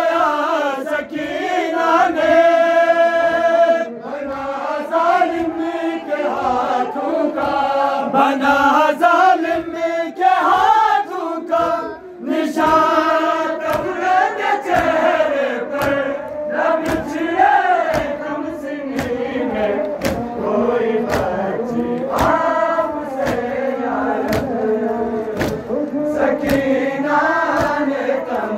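A group of men chanting a noha, a Shia mourning lament, in unison behind lead reciters. A steady beat of sharp slaps from chest-beating (matam) keeps time and grows most regular in the second half.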